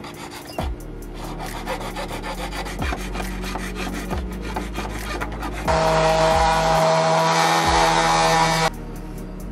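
A hand blade scraping along the edge of a plastic rear diffuser in rapid strokes, shaving off excess material. About six seconds in, a corded rotary tool starts grinding the edge with a steady whine, the loudest part, for about three seconds before cutting off suddenly. Faint background music underneath.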